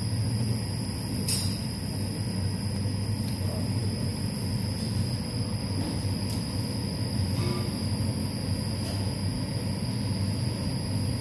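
Induction heater running with a steady low electrical hum and a constant high-pitched whine.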